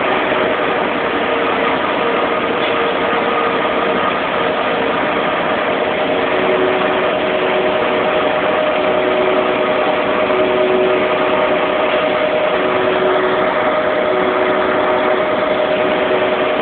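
Diesel engine of a large mining haul truck running at a steady speed, with a few steady tones over the engine noise.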